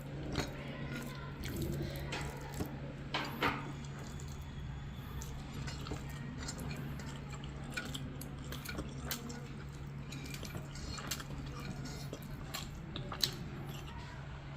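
Quiet eating from a plate of rice and mutton curry: scattered small clicks and clinks of food and fingers against the plate, over a steady low hum.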